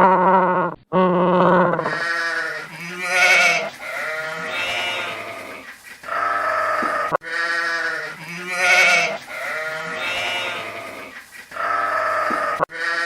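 A bleating farm animal, a sheep or goat, giving a run of separate quavering bleats, some lower and some higher-pitched. The sequence of calls repeats about halfway through.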